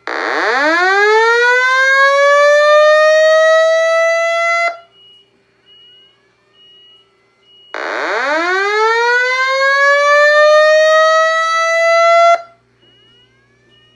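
Simplex 2120 fire alarm voice evacuation system sounding its slow whoop evacuation tone through the speakers. There are two long rising whoops, each about four and a half seconds long, sweeping up quickly and then levelling off, with a pause of about three seconds between them.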